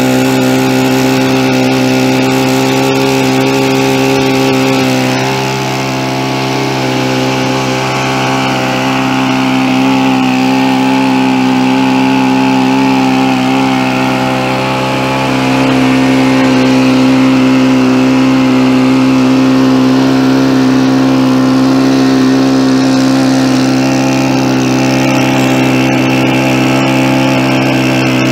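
RC model airplane's small piston engine and propeller running at a steady speed, slightly quieter for a couple of seconds about five seconds in, then a little louder from about halfway on.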